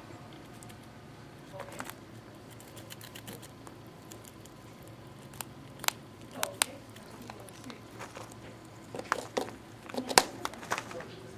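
Squirrel gnawing on a pumpkin: irregular crunching, scraping bites and crackles, sparse at first and coming thick and fast in the last few seconds.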